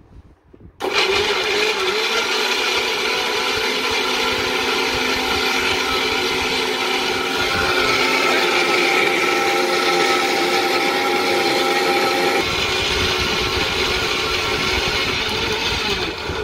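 Boss mixer grinder's motor switched on about a second in and running steadily at full speed, grinding ginger with a little water into paste in its stainless steel jar, then switched off at the end.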